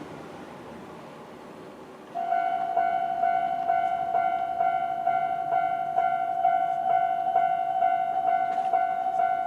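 Japanese railway level-crossing alarm switching on a couple of seconds in: the standard electronic crossing bell ringing a steady, repeated ding about twice a second. Before it, a fading wash of noise.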